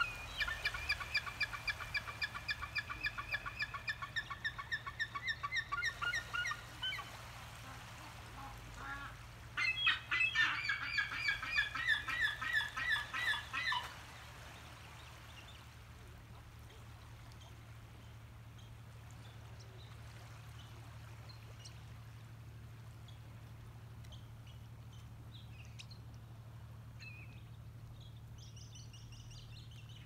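Gulls giving long runs of loud, rapidly repeated yelping calls, about four notes a second, in two bouts: one lasting about six seconds, the second from about ten to fourteen seconds in. After that only a steady low hum remains, with a few faint distant calls near the end.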